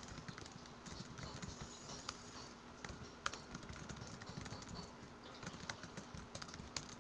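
Fast typing on a laptop keyboard: a quick, irregular run of faint key clicks.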